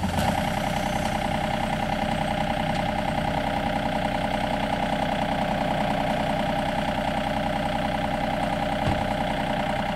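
John Deere compact tractor's engine running steadily at low speed, close by, with an even rhythmic beat; it comes in abruptly at the start. A single short knock near the end.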